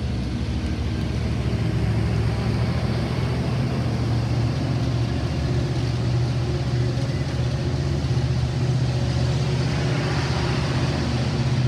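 Metra diesel-hauled bi-level commuter train moving along the platform: a steady low diesel drone over the rolling rumble of the cars, growing slightly louder about two seconds in.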